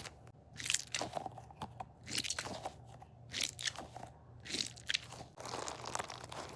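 A squishy stress toy squeezed and worked in the hands close to the microphone, giving a crunching, crackling sound with each squeeze, roughly once a second.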